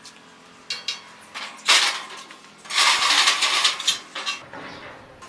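A thick plasma-cut steel plate being pried out of the cutting table's scrap sheet with a hooked steel bar: a few metal knocks, a loud clank about a second and a half in, then about a second and a half of steel scraping and grating as the plate is dragged off.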